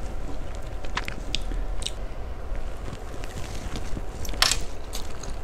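Close-miked chewing and mouth sounds of someone eating fried noodles, with scattered small clicks. A louder, sharp sound comes about four and a half seconds in as a forkful of noodles goes into the mouth.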